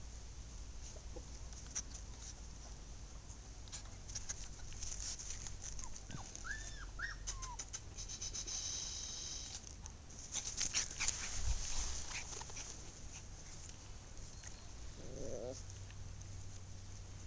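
Polish Lowland Sheepdog puppies giving a few short, high whimpers about six to seven seconds in, and a brief lower whine near the end. Rustling and clicking runs throughout, loudest about ten to twelve seconds in.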